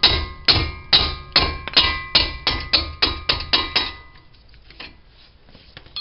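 Mallet striking the handle of a wrench on a caliper bracket bolt to break the bolt loose: about a dozen quick blows, each with a metallic ring from the wrench, coming slightly faster and stopping about four seconds in.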